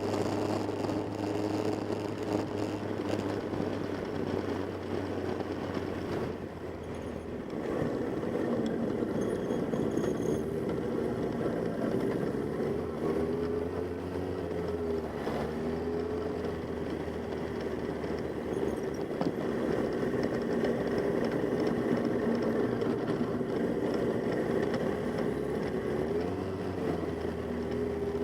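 Motorcycle engines running, the pitch rising and falling repeatedly as the revs change.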